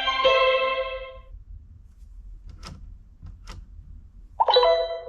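Fisher-Price Linkimals Learning Narwhal electronic toy playing a short burst of violin music from its speaker, with held notes that stop about a second in. Two short clicks follow, then another electronic tone begins near the end.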